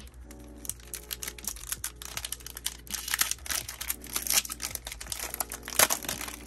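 Foil Yu-Gi-Oh! booster pack wrapper being torn open and crinkled by hand: rapid, dense crackling of the foil, with a sharper loud crack near the end as the wrapper is pulled apart.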